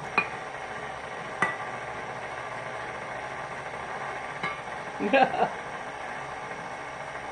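KitchenAid stand mixer running steadily as it beats chocolate cake batter. Two sharp clinks come near the start, and a brief louder sound comes about five seconds in.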